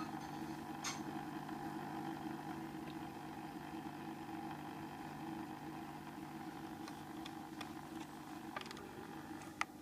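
Tetra VX-75 aquarium power filter's replacement motor head running with a steady hum: the abnormal noise the new motor head still makes. A few short clicks sound over it, the sharpest near the end.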